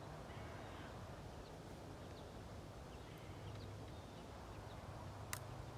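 Crosman 760 Pumpmaster .177 pump air rifle fired once: a single sharp snap about five seconds in, against quiet outdoor background with faint short bird chirps.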